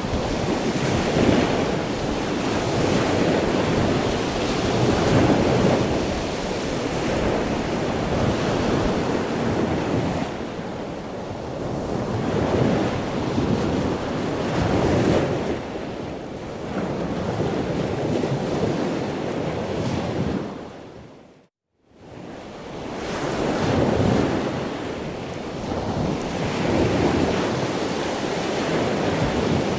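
Ocean surf washing in and out in a continuous rush that swells and eases every few seconds, with wind buffeting the microphone. About two-thirds of the way through, the sound fades briefly to silence and then fades back in.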